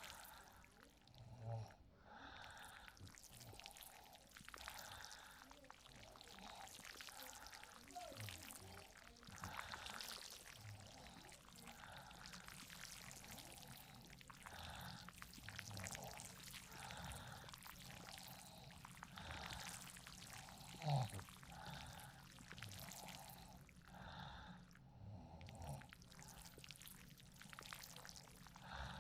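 Faint, steady rain sound with a patter of drops. About 21 seconds in there is one brief, louder low sound.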